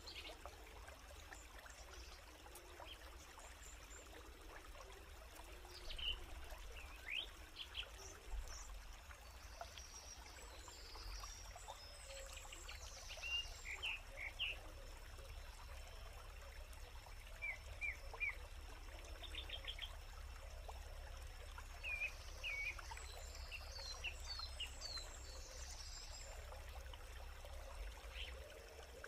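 Faint outdoor forest ambience with scattered short bird chirps, some in quick runs of three or four, over a steady background hiss.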